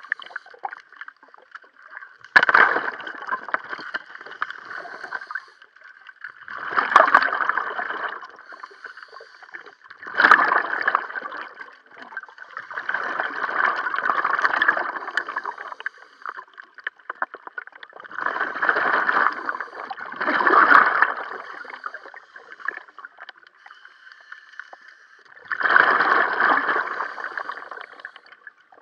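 Scuba diver's exhaled bubbles gurgling from the regulator, heard underwater: a burst of one to three seconds with each breath out, about every four seconds, with quieter gaps for the breaths in.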